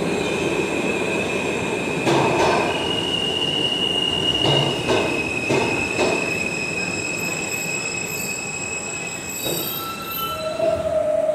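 R160 subway train pulling into the station and braking to a stop, its wheels squealing in long, steady high tones over a rumble, with a few clanks in the first half.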